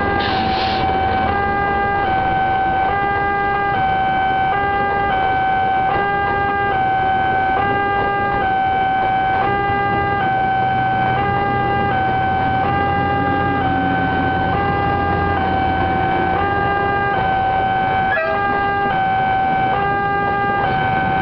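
Electronic two-tone railway level-crossing warning alarm, switching steadily between two pitches about every 0.8 s, over the low rumble of passenger coaches rolling past, with a single knock near the end.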